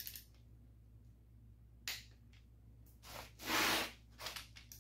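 Hand-tool work on small-block Chevy connecting-rod bolts with a click-type torque wrench: a sharp click about two seconds in, then a louder noisy rasp about half a second long and a few light metallic taps as the wrench comes off.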